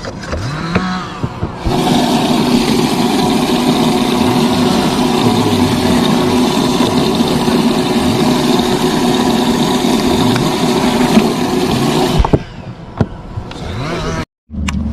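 A motor on a bass boat running steadily for about ten seconds, starting and cutting off suddenly.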